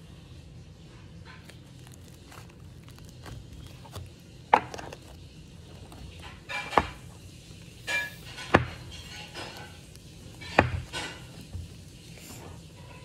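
Pink slime in a plastic tub being poked and pressed with fingers, giving a series of sharp pops and clicks, the loudest a couple of seconds apart.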